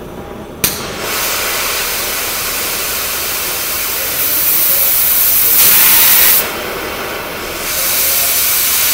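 Oxy-acetylene cutting torch flame hissing loudly as its gas valves are opened and adjusted, to tune the flame until the acetylene feather is gone. It starts suddenly with a sharp pop, gets louder about halfway through, drops back, then swells again near the end.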